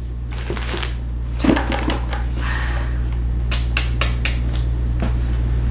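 A package being handled and opened: scattered crinkles, clicks and knocks of packaging, over a steady low hum.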